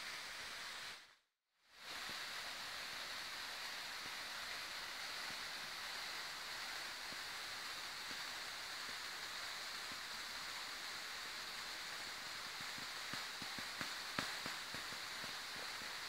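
Steady rushing of a waterfall. The sound cuts out completely for about half a second, a second in, and a few light clicks come near the end.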